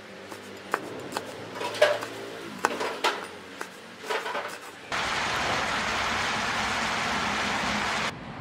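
A knife chopping small red chilies on a wooden cutting board, in sharp, irregular knocks about two a second. About five seconds in, this gives way to a steady, louder sizzle of chopped frog pieces frying in hot oil, which cuts off abruptly near the end.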